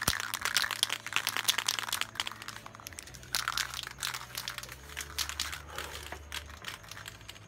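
Aerosol spray-paint can being shaken hard, the mixing ball rattling inside in quick clicks for the first few seconds, then sparser, softer clicks and rustling as the shaking stops.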